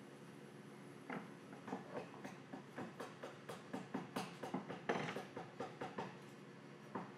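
Hands working along a glued, taped miter fold in a strip of wood, rubbing and pressing it: a run of short scraping strokes, three or four a second, starting about a second in, over a faint steady shop hum.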